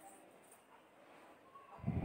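Faint handling sounds as fried potato cubes are lifted out of a nonstick frying pan with a wooden spatula onto a steel plate, with one dull knock near the end.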